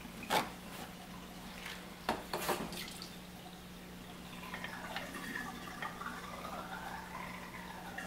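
Frigidaire dishwasher draining during its diagnostic drain test: the drain pump runs with a steady low hum while water gurgles and drips inside the tub. There are a few sharp knocks near the start and about two seconds in.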